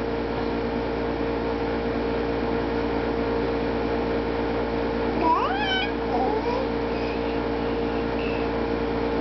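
A one-year-old baby's short rising squeal about five seconds in, followed by a few soft babbling sounds, over a steady hum.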